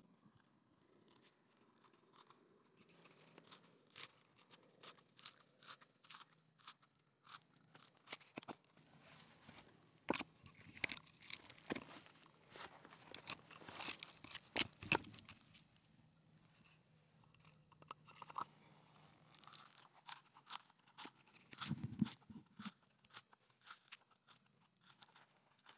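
Auger bit turned by hand with a settler's wrench, boring into a small log: irregular crunching and creaking clicks as the bit bites and lifts wood chips, thickest in the middle stretch.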